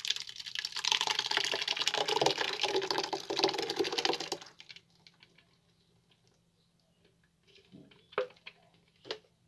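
Thick, watery blended cassava pulp pouring from a blender jug onto a cloth strainer: a wet, crackly pattering that stops about four and a half seconds in. Two brief faint sounds follow near the end.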